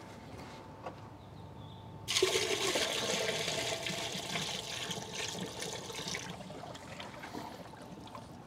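Water poured from a bucket into a pool pump's strainer basket housing: a sudden gush starting about two seconds in, tapering off toward the end. The pump is being filled with water to prime it before it is started.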